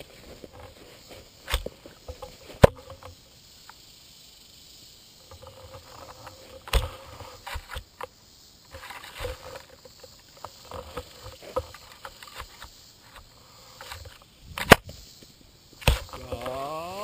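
Croquet mallet striking balls, heard from a camera mounted on the mallet: about five sharp knocks, the loudest a few seconds in. Between them, the soft rustle of the mallet head and feet moving through dry grass.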